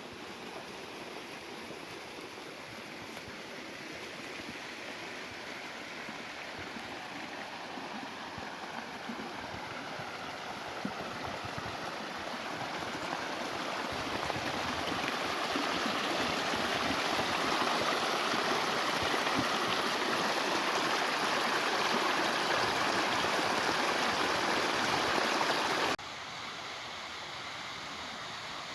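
Running water of a stream, a steady rushing that grows louder, then drops suddenly to a quieter level near the end.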